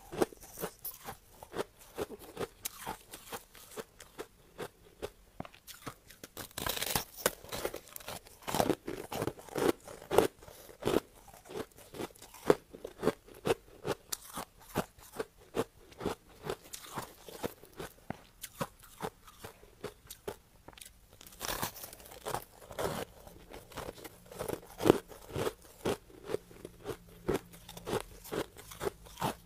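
Crushed ice being chewed: a steady run of crisp crunches, about two to three a second, a few of them louder than the rest.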